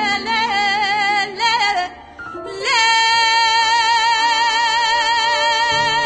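A woman's solo voice singing a Kurdish folk song, with quick ornamented turns and vibrato, then a short dip before she holds one long, wavering note from about three seconds in.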